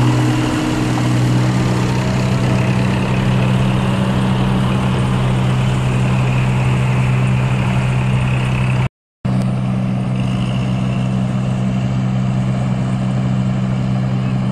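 Diesel engines of a tracked combine harvester and a farm tractor running steadily at a constant speed, a loud even low hum that holds its pitch. The sound drops out completely for a moment about nine seconds in.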